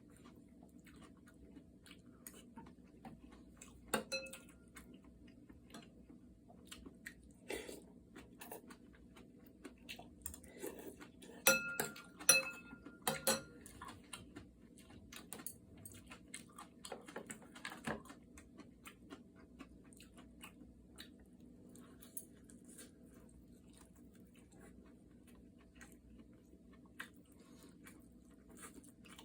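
Metal eating utensils clinking and tapping against dishes while eating, a few strikes ringing on briefly, loudest in a cluster about halfway through, with quiet chewing between.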